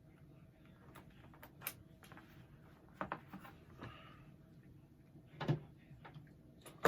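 Metal clicks and knocks of a 1953 Tula SKS rifle being handled as its action is opened to clear the chamber, a few separate clicks with a sharp snap near the end.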